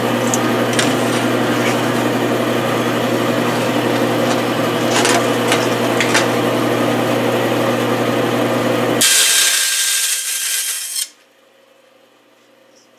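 Vertical band saw running and cutting aluminum diamond plate: a steady motor hum under a rasping blade noise, with a few sharp ticks about halfway through. About nine seconds in the hum gives way to a harsher high hiss for a couple of seconds, then the sound cuts off suddenly to quiet.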